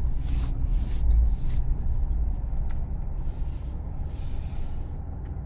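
Low rumble of a 2022 Chevrolet Silverado ZR2's 6.2-litre V8 and road noise, heard inside the cab as the truck rolls slowly up to a house. The rumble fades gradually as the truck slows, with a few short hissing sounds near the start and around the middle.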